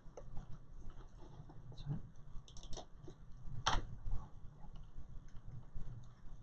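Faint, scattered clicks and light taps over low room hum, with one louder click about three and a half seconds in.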